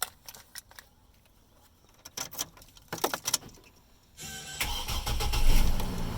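A few scattered clicks and knocks, then about four seconds in a car's starter cranks briefly and the engine catches, revs up and settles into a steady idle.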